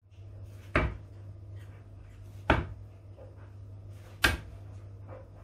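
Steel-tip darts striking a Winmau Pro SFB sisal bristle dartboard: three sharp thuds, about a second and three-quarters apart.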